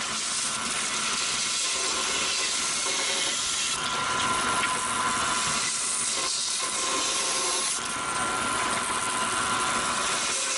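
Bandsaw cutting the corners off a block of olive wood: a steady hiss with a faint whine, starting suddenly.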